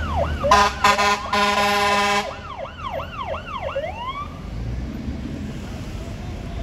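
Fire engine siren yelping at about three sweeps a second. An air horn blasts for about a second and a half near the start and is the loudest sound. The siren stops about four seconds in, leaving the low rumble of the fire engine running.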